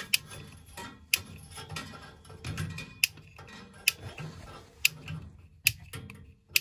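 Long flexible-neck spark lighter clicking about once a second, seven times, trying to light a gas boiler's standing pilot. The pilot does not catch: no gas is reaching the pilot through its tubing.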